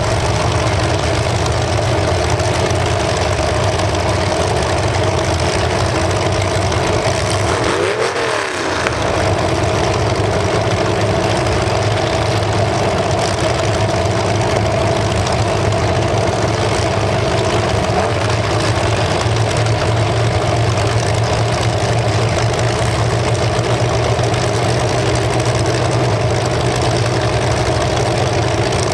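Demolition derby cars' engines running and revving hard without a break, with a brief dip and a change in pitch about eight seconds in.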